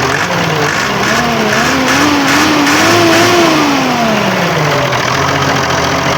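Ebro 8135 tractor's Perkins T6.354.3 six-cylinder turbo diesel, freshly valve-adjusted, revved from idle: the pitch climbs unevenly for about three seconds, then runs back down to a steady idle.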